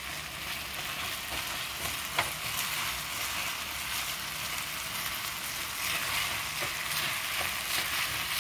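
Instant ramen noodles sizzling in olive oil in a small black pot on a gas burner while they are stirred and tossed with chopsticks: a steady frying hiss with a few sharp clicks of chopsticks against the pot, the loudest about two seconds in.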